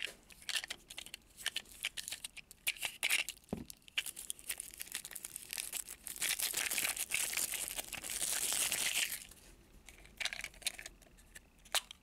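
A mystery toy package being torn open by hand, its wrapping rustling and crinkling with scattered clicks, and a longer stretch of steady tearing about six seconds in.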